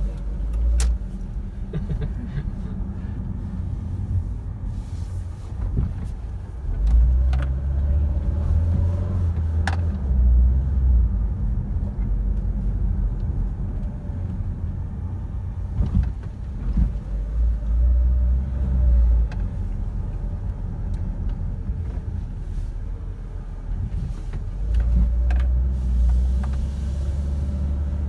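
Car cabin noise while driving slowly: a low engine and road rumble that swells and eases several times, with a few light clicks.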